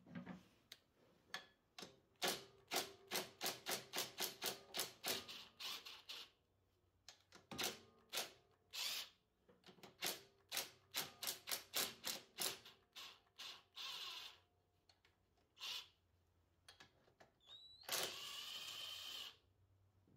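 Ryobi cordless driver backing out the valve cover screws on a riding mower engine: runs of sharp clicks at about three to four a second, then near the end its motor spinning freely for a second or so.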